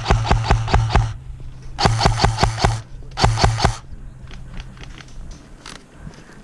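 Airsoft electric gun firing three full-auto bursts of about seven shots a second, each burst about a second or less, with the low hum of its motor under the shots. Fainter scattered pops follow.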